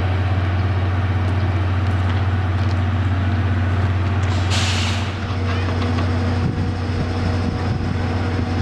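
Train with an EF65 electric locomotive at the station, making a steady low drone. About four and a half seconds in comes a short burst of air hiss, typical of air brakes releasing.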